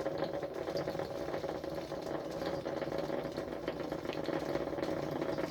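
1930s Cory vacuum coffee maker bubbling steadily as steam from the lower bowl pushes up through the coffee in the upper chamber, with the water fully risen.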